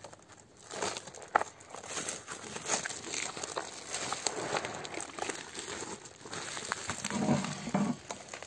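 A woven plastic flour sack holding cooked sour cherries rustles and crinkles unevenly as hands pull and fold it inside a plastic bucket.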